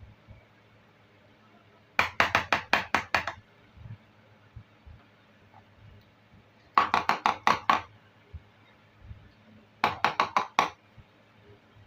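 Small hard plastic toy kitchen pieces clicking and tapping against each other in three quick runs of sharp taps, each about a second long.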